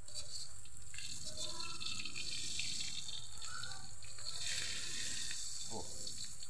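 Smoked fish sizzling in shallow oil in a wok, a steady hiss, as a metal spatula presses the fish down into the oil.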